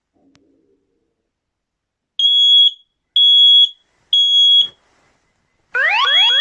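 X-Sense alarm sounding three loud, high-pitched beeps about a second apart, the three-beep pattern of a fire alarm. Near the end a fast, repeating rising electronic sweep starts.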